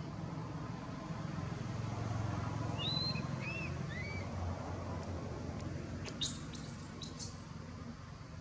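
A low rumble swells and then fades over the first half. A few short high chirps come about three seconds in, and a quick run of sharper high chirps follows about six seconds in.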